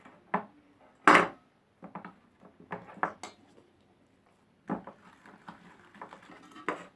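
Crockery plate and spoon clinking and knocking while slime is handled: a string of separate sharp knocks, the loudest about a second in.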